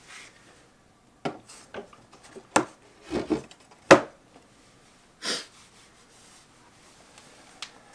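A heavy in-wall speaker being set down and shifted on a small wooden end table: a series of knocks and clunks, the loudest about four seconds in, followed by a brief rustle and a light click near the end.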